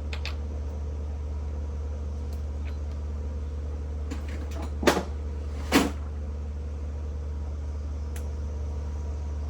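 A steady low hum throughout, with a few faint clicks and two sharp knocks about a second apart near the middle, from parts or tools being handled during assembly work.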